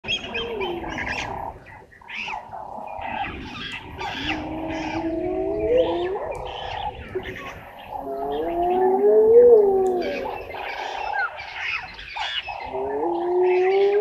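Birds calling: drawn-out wailing calls that rise and then fall in pitch, about four of them, the loudest about nine seconds in, over quicker, higher chattering notes.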